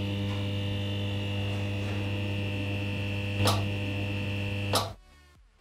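Electrical buzz of a neon sign: a steady mains-type hum with a thin high whine above it, crackling once about three and a half seconds in and again just before it cuts off near five seconds.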